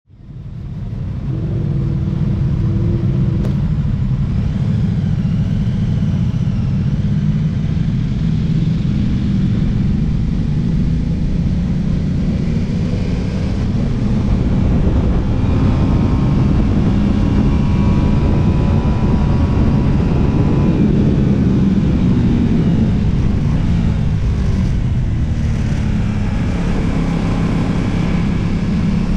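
Twin-cylinder sport motorcycle under way, heard from a camera mounted on the bike: a steady low engine and wind rumble. It grows a little louder from about halfway as the bike leaves the pit lane and picks up speed on track.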